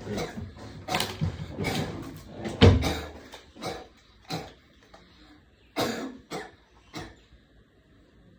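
A person coughing: a quick run of hacking coughs over the first three seconds, then single coughs spaced a second or so apart.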